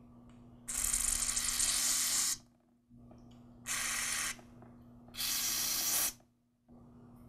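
Aerosol carburetor cleaner hissing out through its thin extension straw into the small passages of a trimmer carburetor to flush them clean. It comes in three bursts: the first about a second and a half long, then two shorter ones.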